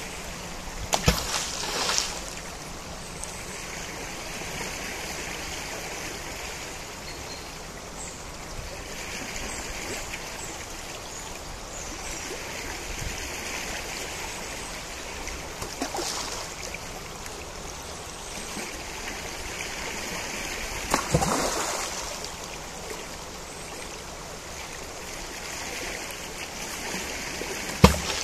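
Najerilla river flowing: a steady rush of water with gentle swells every few seconds. A few brief, sharp sounds break through it, the loudest about a second in, about three-quarters of the way through, and just before the end.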